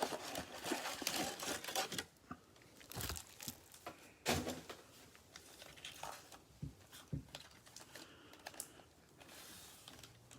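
Plastic wrapper of a basketball trading-card pack crinkling and tearing as it is opened by hand. Dense crinkling comes in the first two seconds, then scattered clicks and rustles as the cards are handled.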